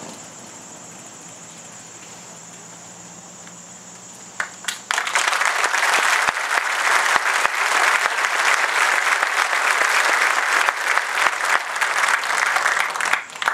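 Crowd applauding, starting about four and a half seconds in and stopping abruptly just before the end. Before and under it runs a steady high-pitched drone.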